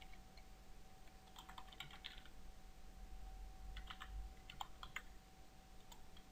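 Faint typing on a computer keyboard, in a few short runs of key clicks with pauses between.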